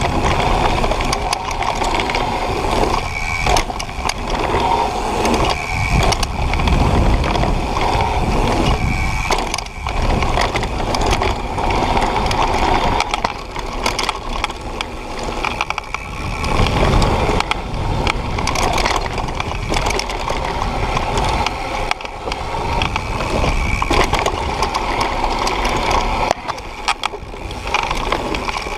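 Propain Tyee mountain bike riding fast down dirt and gravel trails: steady tyre rumble and crunch with frequent knocks and rattles of the bike over bumps, and wind on the microphone.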